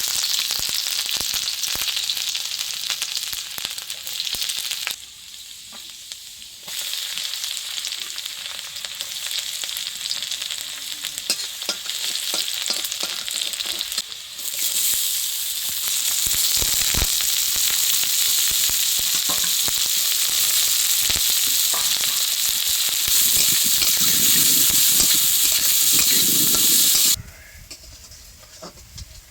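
Food sizzling in hot oil in a pan, with the clicks and scrapes of a spatula stirring it. The sizzle drops away abruptly about five seconds in, comes back, is louder from the middle on, and cuts off suddenly near the end.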